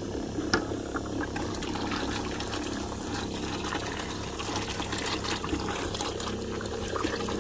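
Liquid jetting from a hose fitting into a bucket and splashing, with a steady low pump hum underneath: the return flow of a muriatic acid and water solution being circulated through a pressure washer heater coil to descale it.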